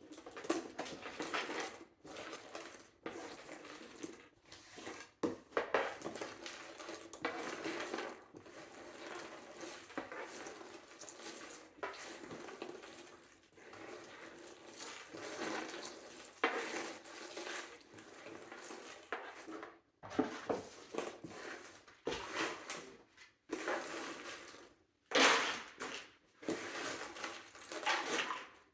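Irregular clattering and rustling of small, light, hard objects being handled, coming in uneven bursts with a sharper, louder burst near the end.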